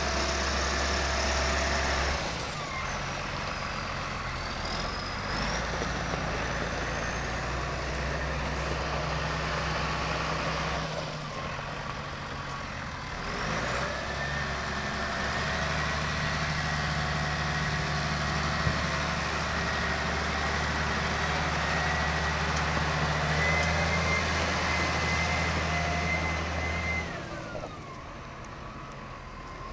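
1996 Massey Ferguson 6180 tractor's diesel engine running as the tractor is driven, with a steady low note. The engine's level drops about two seconds in, dips briefly around the middle and falls away near the end. A faint high whine runs over it in the second half.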